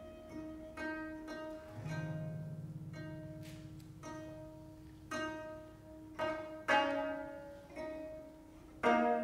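Twenty-five-string gayageum playing sparse plucked notes that ring and fade, slow and unhurried, with a low cello note held for about two seconds starting about two seconds in. The plucked notes grow louder near the end.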